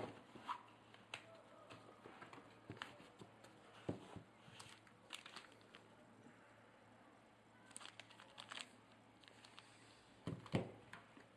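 Faint handling noises while building a PC: scattered light clicks and knocks with some crinkling, with a louder double knock near the end.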